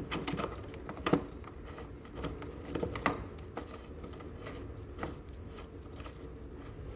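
A few light metal clicks and knocks from steel floor jack parts being handled and fitted together, the sharpest about a second in, over a faint steady hum.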